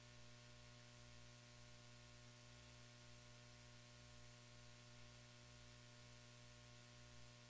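Near silence: a faint, steady electrical hum with a low hiss.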